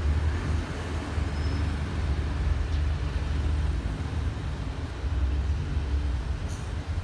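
Low, steady rumble of a diesel express train pulling away along the track.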